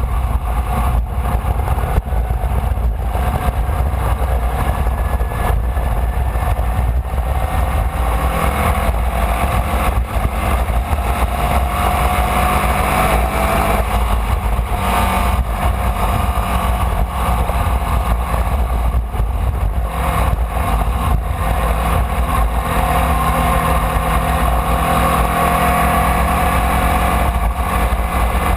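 Onboard sound of a Formula Vee race car's air-cooled Volkswagen flat-four engine running hard, its pitch rising and falling over a steady low rumble.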